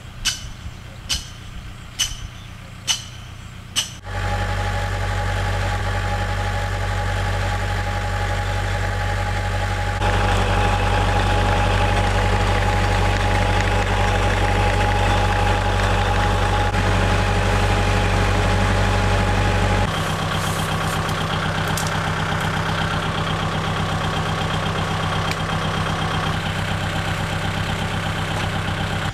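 A few sharp knocks about a second apart, then an engine running steadily, its tone changing abruptly twice.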